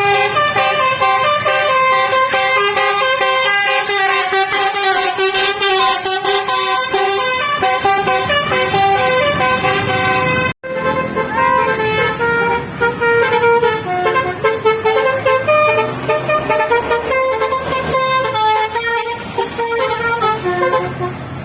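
Bus 'telolet basuri' multi-tone horn playing a loud melody of stepped notes. A sudden break about ten seconds in, then the horn tune goes on.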